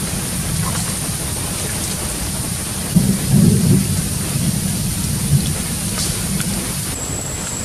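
Steady rain with a low rumble of thunder that swells about three seconds in.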